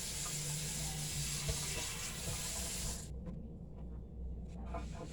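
Water running from a kitchen tap, shut off suddenly about three seconds in, followed by a few light knocks.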